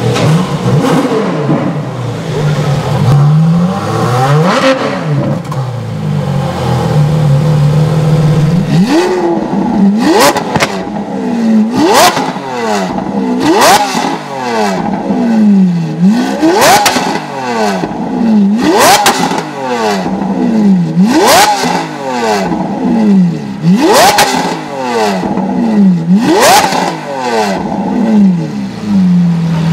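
A supercar engine idling with one slow rise and fall in revs, then a Lamborghini Aventador's V12 revved hard while standing still: about eight quick blips, roughly one every two seconds, each climbing sharply and dropping back to idle with a sharp crack at the peak.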